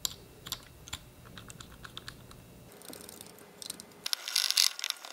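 Light, irregular clicks of small engine parts and a wire-mesh intake screen being handled on a small jet engine, then about four seconds in a short spell of a cloth rubbing briskly over a steel engine part.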